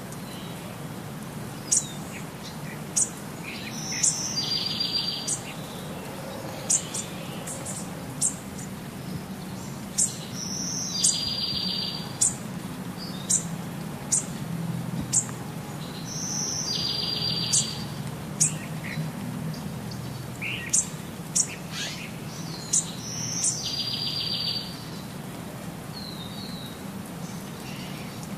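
Birds chirping: short, sharp, high chirps every second or so, with a buzzy trilled call that repeats about every six seconds.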